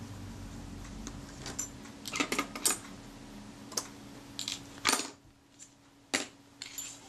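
Small metal parts clicking and clinking: tweezers working the thin retainer ring and front rings off a camera's leaf shutter, and the rings being lifted and set down. A scatter of sharp, brief clicks starts about two seconds in.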